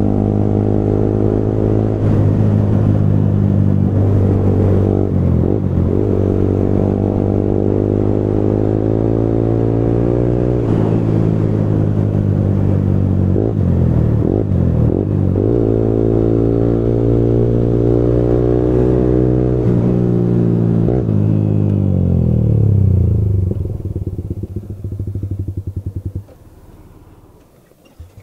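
Yamaha R15M's 155 cc single-cylinder engine running loud through an aftermarket full-system exhaust while being ridden. The engine note climbs and drops several times with short breaks, then falls away near the end, where it goes much quieter.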